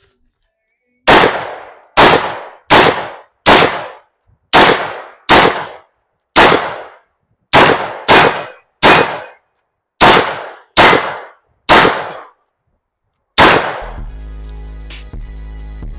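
Short-barrelled 11.5-inch AR-15 rifle firing fourteen single shots, semi-automatic, about one every 0.7 to 1 s with a couple of short pauses. Each shot is a sharp crack with a brief ringing tail. Music with a heavy bass comes in near the end.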